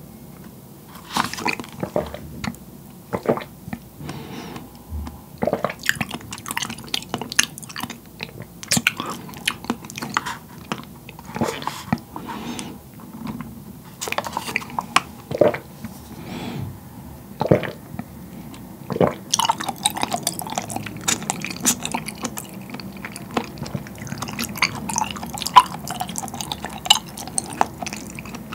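Bubble tea sucked up a wide straw and chewed: wet slurps and sips of green grape ade, then squishy, clicking chewing of seaweed-based white pearls, the chewing getting denser in the second half.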